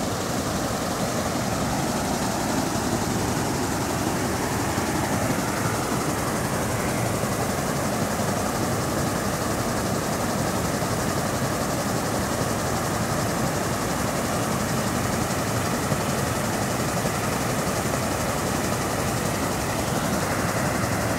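Water spilling over a long cascade wall and falling into a pool, a steady, unbroken splashing.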